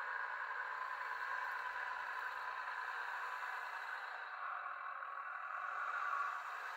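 Small electric drive motor and gearbox of an RC truck on a WPL D12 chassis running as it drives, a steady whine that swells slightly about six seconds in.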